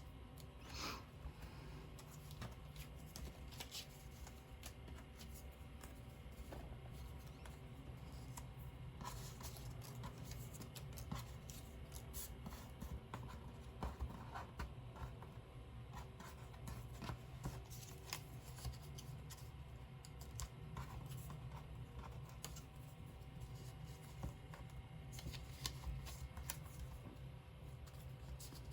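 Paper die cuts being handled and moved about on a craft desk: light rustling, scraping and scattered small taps, over a steady low hum.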